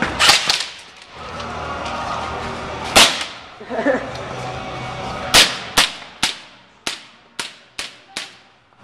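Airsoft gun firing sharp single shots: a quick few at the start, one about three seconds in, then a string of about seven shots roughly half a second apart that grow fainter toward the end.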